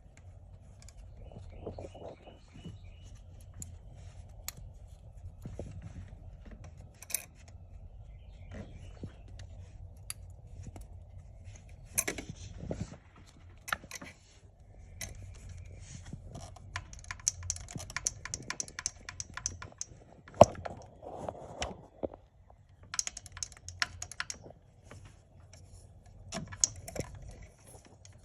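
Irregular sharp clicks and snaps of hands handling and unclipping parts in the engine bay, over a faint steady low hum.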